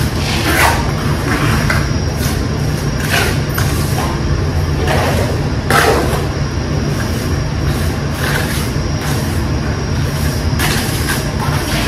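Steady low mechanical hum, with about ten short scrapes of a trowel spreading and working Type-S cement mortar on a wall.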